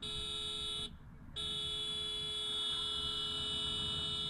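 Motorcycle horn honking: a honk of about a second, a brief break, then a long steady honk.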